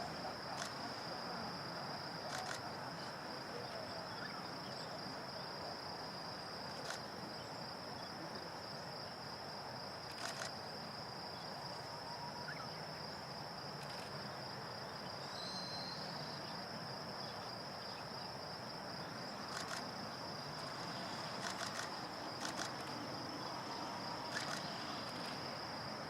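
A high-pitched insect trill runs unbroken as one steady tone over a low hiss of outdoor ambience, with a few faint scattered clicks.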